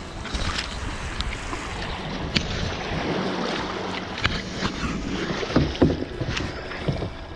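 Shallow water sloshing over a pebble beach as a plastic sit-on-top kayak comes ashore, with a few sharp knocks of stones as the paddler steps out into the shallows.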